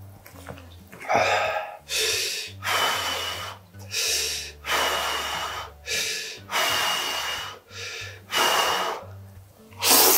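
A man slurping spicy instant ramen noodles: a quick series of about ten loud, short slurps, some with a thin whistling edge.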